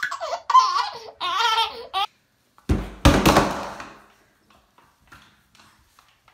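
A baby laughing in bursts of belly laughs and giggles, which stops about two seconds in. A sudden thump follows a little over half a second later, then about a second of rushing noise, then only faint small ticks.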